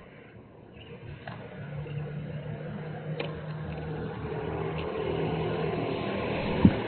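A steady motor hum that slowly grows louder, with a few faint clicks and one sharp knock near the end.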